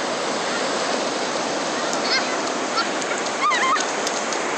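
Ocean surf washing up the beach, a steady rushing hiss, with a few short high-pitched calls about two seconds in and again about three and a half seconds in.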